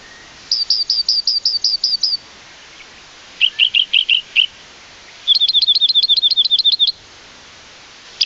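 A small songbird singing: three short trills of quick repeated chirps, each one to two seconds long, the middle trill lower in pitch than the other two.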